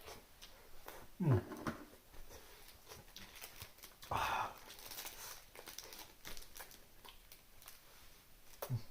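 A man eating cup ramen: short slurps and mouth and breath sounds. There is a short falling sound about a second in and again near the end, and a louder noisy slurp about four seconds in.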